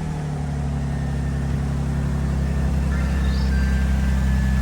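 Lexus IS300's 2JZ-GE inline-six idling steadily just after a cold start, run to check a freshly fitted exhaust gasket for leaks.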